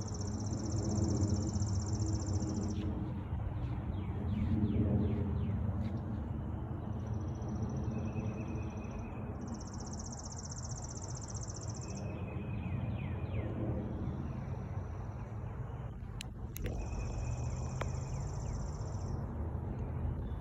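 Outdoor nature ambience: a high, buzzing trill comes in bursts of about three seconds with gaps between, and short bird-like chirps sound over a steady low rumble. Two sharp clicks come about three quarters of the way through.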